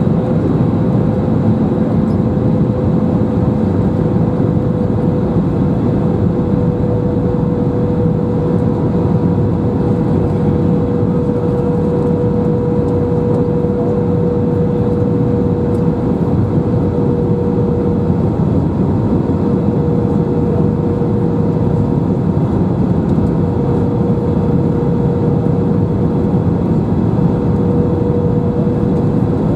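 Airbus A319 airliner cabin noise in flight: a steady rush of air and jet engine running, with a constant droning note over it.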